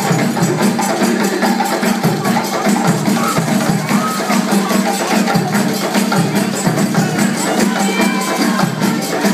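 An ensemble of djembe hand drums playing a fast, steady rhythm together, loud and dense with many strokes a second.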